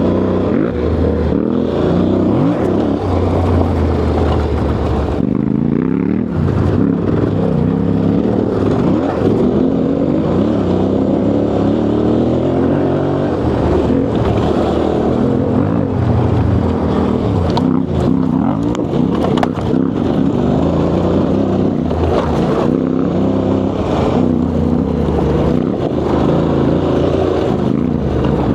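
Yamaha Ténéré 700's parallel-twin engine running under way, its pitch rising and falling as the throttle is opened and closed.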